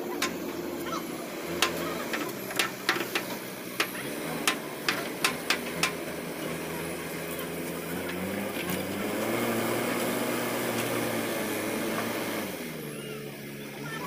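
JCB backhoe loader's diesel engine running, with a quick run of sharp knocks in the first half and the engine revving up for a few seconds near the end before dropping back.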